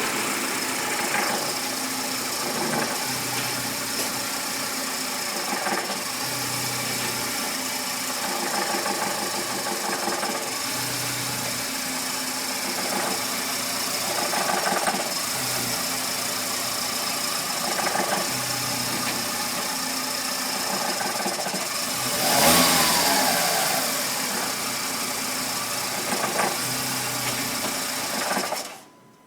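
Volkswagen Gol G5 engine running, with the abnormal chirping ('grilando') engine noise that the owner has heard since the car was new and says has got worse. The engine runs steadily with swells every second or two and gives one brief rev about three-quarters of the way through, then the sound cuts off abruptly near the end.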